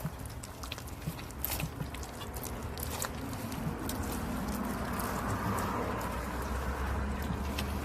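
Wild rock-honey comb being broken and scraped out, crackling and crunching with scattered sharp clicks. A low rumble swells in the second half.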